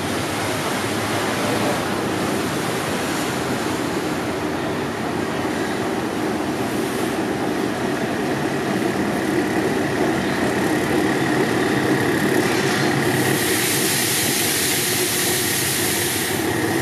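Alsthom diesel-electric locomotive running as it rolls into the station at the head of a passenger train, growing slowly louder as it comes closer. In the second half a thin, steady high squeal rises, and a hiss joins it near the end as the train slows to stop.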